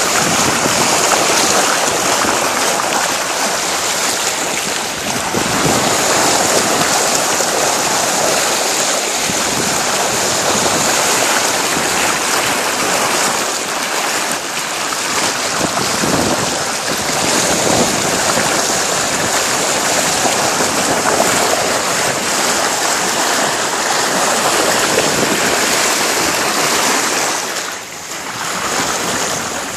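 A sailboat's bow wave rushing and splashing along the hull while under way, with wind on the phone's microphone. The rush dips briefly about two seconds before the end.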